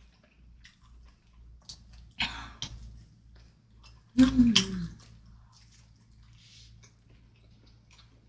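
Close-miked eating sounds: small crunchy chewing clicks of crispy pan pizza, with a louder noisy bite or slurp about two seconds in. About four seconds in there is a short vocal sound falling in pitch.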